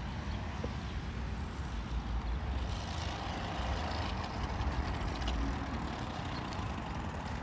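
A 25cc Craftsman two-stroke string-trimmer engine running on a homemade friction-drive bicycle as it is ridden toward the microphone, getting a little louder toward the middle, with wind rumbling on the microphone.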